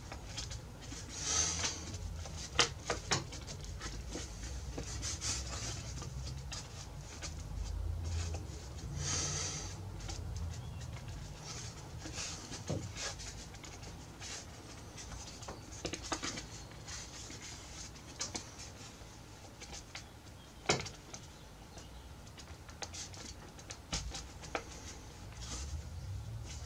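Hand work at a workbench: scattered light clicks and taps over faint rustling, with two short hissy scrapes about a second and nine seconds in and one sharper click near the end.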